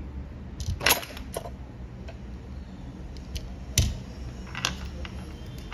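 A few sharp clicks and taps of small metal tools being handled and set down, the loudest nearly four seconds in, over a steady low hum.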